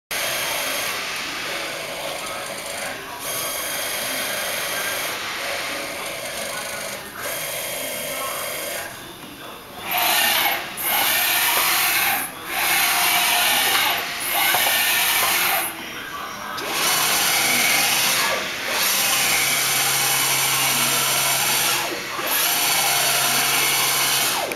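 1995 Hurco 5M CNC vertical milling machine running under power: a motor whir that comes in runs of one to two seconds separated by short breaks, with a steady low hum joining in about two-thirds of the way through.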